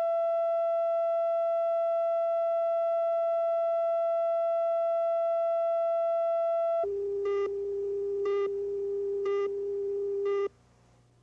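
Steady electronic line-up tone on a broadcast news tape, held for about seven seconds. It then switches to a lower steady tone with four short, higher beeps about a second apart, and cuts off suddenly near the end.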